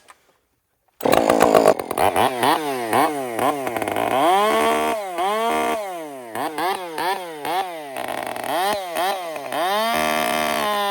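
Gas chainsaw fitted with a brand-new semi-chisel chain, starting loud about a second in and cutting wood. The engine speed dips under load and climbs back again and again.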